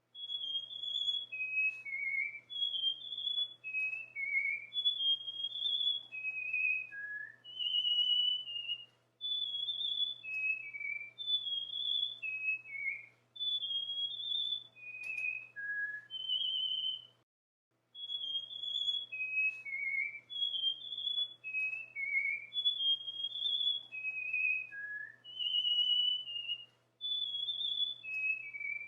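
Cockatiel whistling its song: a melody of short, clear high notes stepping up and down, repeated three times with a brief pause between each run.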